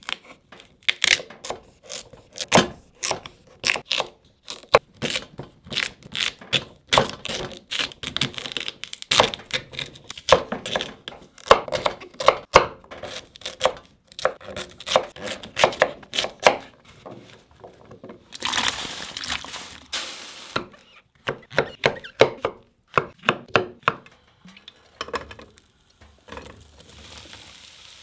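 Knife chopping food on a cutting board: many quick, irregular strokes, with a brief hissing rustle a little after halfway. Near the end a steady sizzle of frying in a pan begins.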